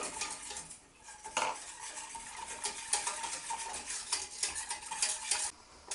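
Wire whisk beaten rapidly in a metal saucepan, clicking and scraping against the pan's sides and base as milk is whisked into a butter-and-flour roux for a cheese sauce. The rapid clicking pauses briefly about a second in and stops just before the end.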